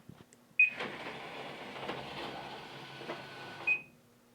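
Vending machine beeps, then its dispensing motor runs for about three seconds, whirring with light clicks as it turns the spiral for the chosen slot, and beeps again as it stops.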